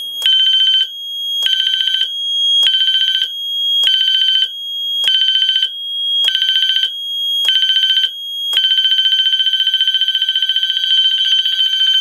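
Wheelock MT fire alarm horn set to a bell tone at low volume, ringing in short pulses a little over a second apart during the releasing panel's 10-second pre-discharge countdown. It goes steady about three-quarters of the way through, the point at which the system would release its suppression agent, and is cut off at the very end.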